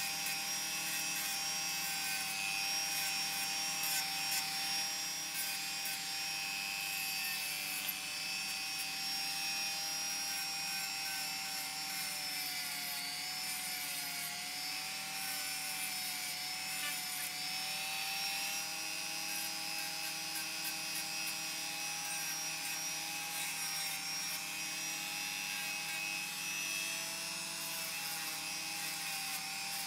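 Small high-speed rotary tool with a sanding drum sanding a laminated plywood saw handle. It makes a steady high motor whine whose pitch sags slightly now and then, over the rasp of the drum on the wood.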